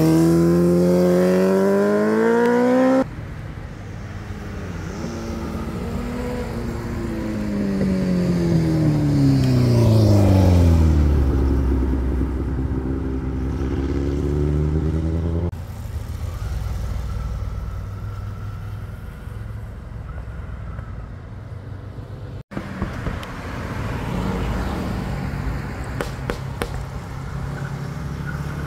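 Sport motorcycle engine accelerating with rising pitch, cut off abruptly after about three seconds. Then a vehicle engine falls steadily in pitch and settles into a low steady hum. After that comes quieter sound of vehicles on the road.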